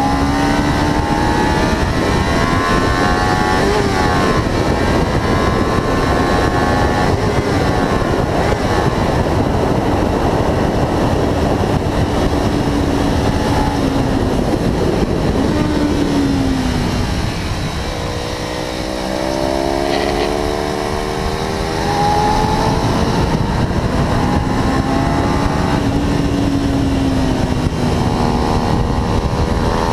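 Kawasaki Ninja 300's parallel-twin engine running at high revs on track, heard onboard over heavy wind noise. Its pitch rises and falls through gear changes. About two-thirds through it eases off and goes quieter, then winds back up hard.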